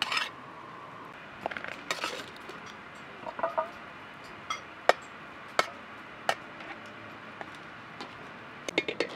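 A metal spatula clinks and scrapes against a metal cooking pot as cooked rice is stirred. Single sharp clinks come every second or so, and a quick run of about five taps comes near the end.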